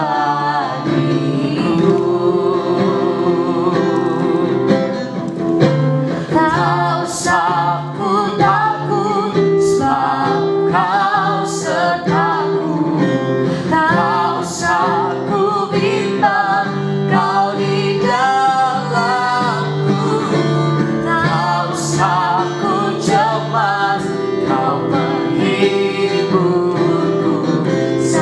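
Christian praise song: voices singing over steady instrumental accompaniment.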